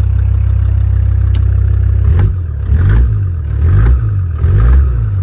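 Land Rover Defender Td5's 2.5-litre five-cylinder turbodiesel, just started, idling steadily, then revved up and down in a few quick blips from about two seconds in, heard from inside the cab.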